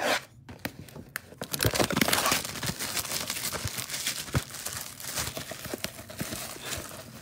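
Plastic shrink-wrap crinkling and tearing as a sealed Panini Contenders mega box of trading cards is unwrapped by hand. A short crackle at the start, then dense irregular crackling from about a second and a half in.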